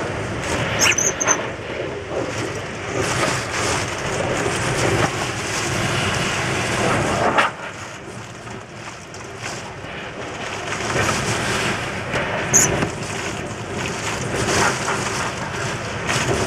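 Typhoon wind gusting hard and buffeting the microphone, swelling and easing, dropping away sharply about halfway through before rising again. Two brief high squeaks cut through, about a second in and again near the end.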